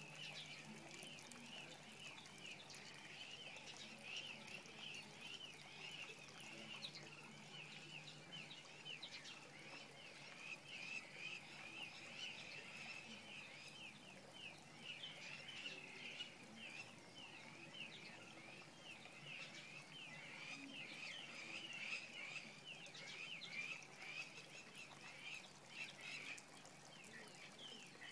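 Dawn chorus of many small birds, a dense, unbroken mass of short high chirps overlapping one another.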